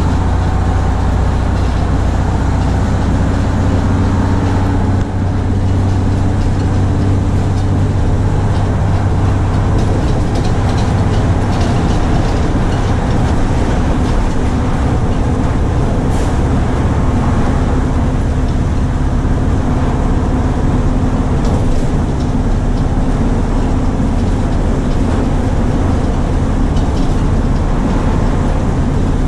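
Steady engine drone and road noise heard from inside a 1971 Crown Super Coach tandem-axle school bus cruising at highway speed.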